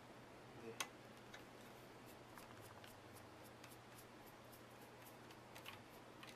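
Faint clicks and ticks of a precision screwdriver turning screws out of a laptop's plastic base, with one sharper click about a second in, over a low steady hum.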